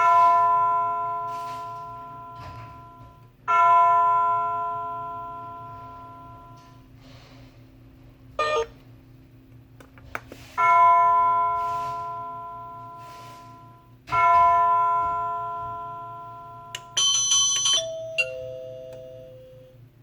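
Wireless doorbell receiver sounding its chime: a bell-like tone is struck four times, each ringing out and fading over about three seconds. Near the end a brief high ringing follows, then a falling two-note ding-dong.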